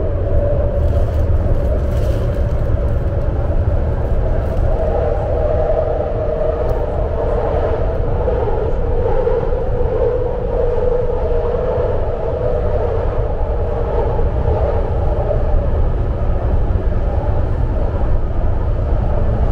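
Legacy Fleet BART train car running at speed, heard from inside the passenger cabin: a steady, deep rumble with a loud whining tone riding above it that sags a little in pitch midway and rises again.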